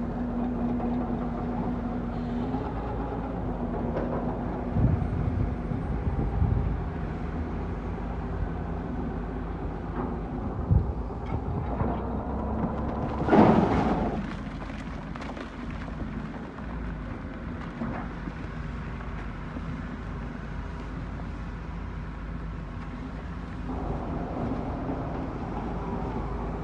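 Heavy truck's diesel engine running steadily while driving, with a few low knocks and a brief loud rush of noise about halfway through.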